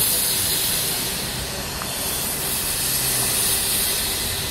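Narrow-gauge steam locomotive venting steam with a loud hiss as it moves slowly. The hiss starts suddenly, eases about two seconds in, then swells again.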